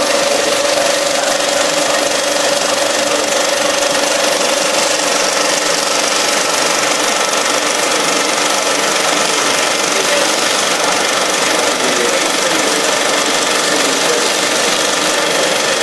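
35mm cinema film projector running, film passing through the gate and sprockets, with a steady, even mechanical noise.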